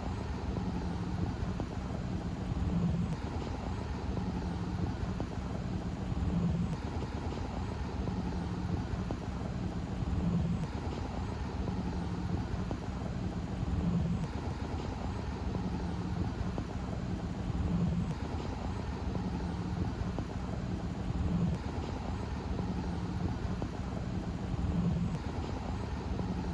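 A steady low mechanical drone, like an engine or machine running, that swells slightly about every three and a half seconds.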